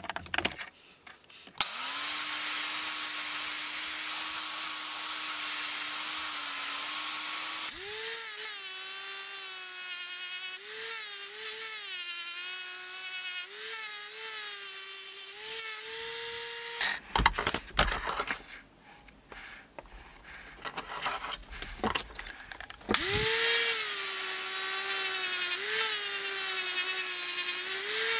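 Angle grinder with a sanding disc sanding a cast aluminium handle: its whine starts about a second and a half in, steps up in pitch and wavers up and down as the disc works the metal. It stops for several seconds in the middle with some scattered knocks and clatter, then starts again and runs on.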